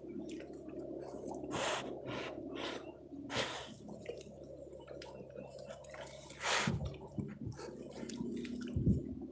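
Dogs snuffling and sniffing hard with their noses pushed into a field-mouse burrow, in a run of short, quick bursts, with dry straw stubble rustling and a couple of dull knocks in the second half.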